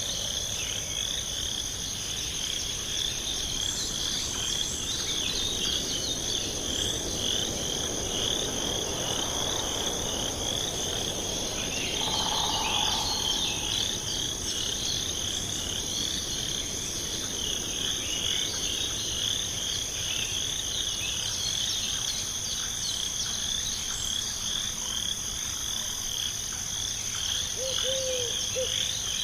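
Night chorus of frogs and insects: a steady high insect trill with a dense band of fast repeated chirps. An owl hoots twice near the end.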